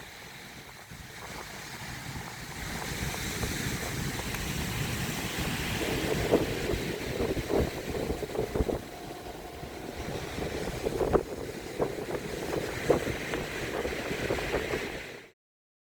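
Storm surf breaking on the shore, with strong wind buffeting the microphone in gusts and short thumps. The sound cuts off suddenly near the end.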